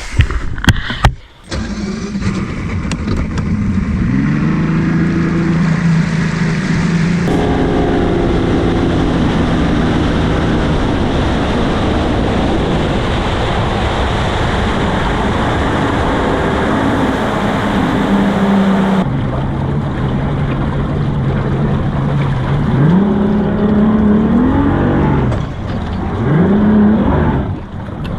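Bass boat outboard motor running at speed, a steady engine note under a wash of wind and water noise. The pitch rises a few times near the end as the throttle changes.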